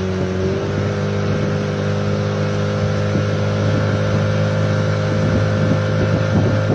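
A small river boat's engine running steadily under way, a constant drone with water and wind noise over it.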